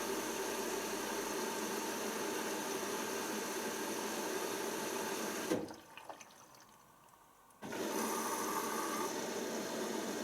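Hoover DYN7144XD1 washing machine running a wash, its motor turning the drum with water sloshing inside. About halfway through there is a click, and the machine goes quiet for about two seconds before starting again.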